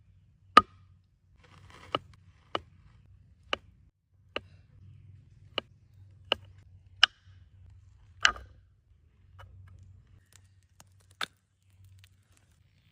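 Sharp taps at irregular intervals, about ten in all, over a faint low hum.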